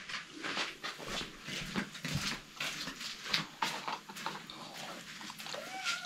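A domestic cat mewing in short, repeated cries, with one clearer curving call near the end.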